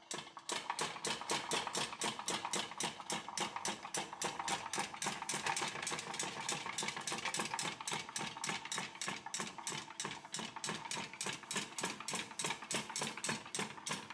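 Restored 1860s Starrett hand-cranked meat chopper being turned by hand, its mechanism clacking at an even rate of about four clacks a second as the pawl ratchets the toothed bowl round.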